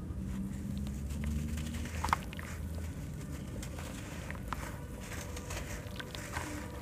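Soaked sand-cement block crumbled by hand in a bucket of water: gritty crunching and crackling with many small scattered clicks and one sharper click about two seconds in. A low rumble runs under the first three seconds.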